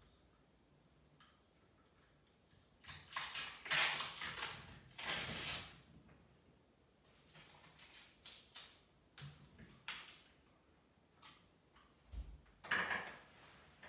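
Hands handling a metal wall-lamp fitting against a brick wall: a few seconds of scraping and rustling, then scattered small clicks, clinks and knocks, and one more short scrape near the end.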